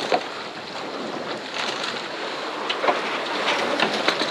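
Wind buffeting the microphone and water rushing along the hull of a Catalina 387 sailboat under sail as it tacks, with a few scattered clicks and knocks.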